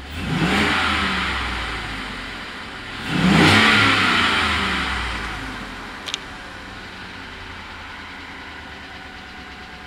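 Ford 5.0 L Coyote V8 in a 2017 F-150 revved twice, about three seconds apart, to around 3,500 rpm. Each time it climbs quickly and then falls back, and it settles to a steady idle for the second half.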